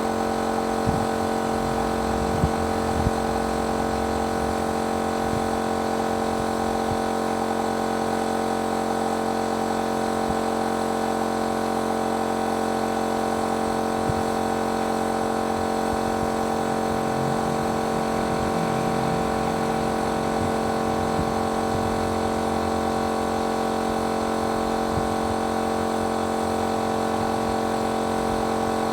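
Painting machine's motor running steadily with a constant, even-pitched hum. A few faint knocks come in the first few seconds and once around the middle.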